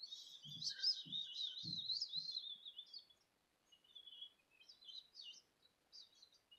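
High, warbling whistled chirps, given as the sound of a tarantula (a 'whistle spider'). They run continuously for about three seconds, then break into scattered fainter chirps. A few soft low thumps come in the first two seconds.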